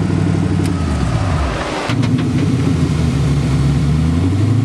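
Twin-turbo LS V8 of a sand buggy running, heard from the open cab. Its note drops about a second in, two sharp clicks come near two seconds, and it then pulls steadily, climbing slowly.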